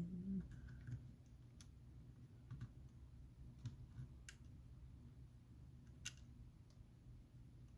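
Faint, sparse light clicks of a small tool and phone parts being handled while fitting the ribbon-cable connectors onto an iPhone 7's logic board, the loudest click about six seconds in, over a faint steady low hum.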